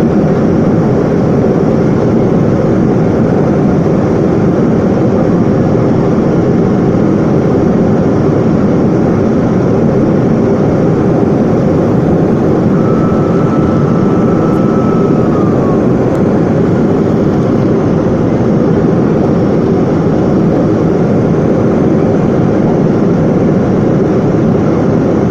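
Airplane engines running loud and steady during takeoff, a dense even rumble with no rise or fall. A faint short tone sounds about halfway through.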